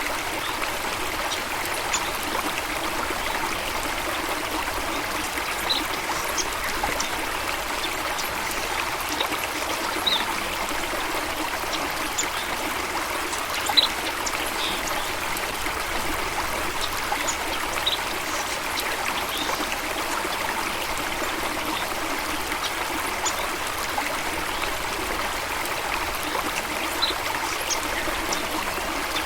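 Stream water running steadily, an even rushing and trickling with no change in level, with faint short high-pitched notes scattered over it.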